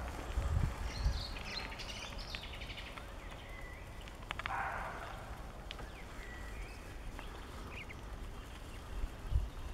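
Roe deer barking: one short, harsh bark about four and a half seconds in, part of a bark repeated every five or six seconds, the alarm call of a roe deer. Small birds chirp briefly near the start, and dull low thumps come near the start and near the end.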